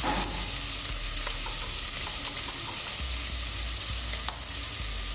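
Chopped onions frying in cooking oil in a pot: a steady sizzle, with a few faint clicks.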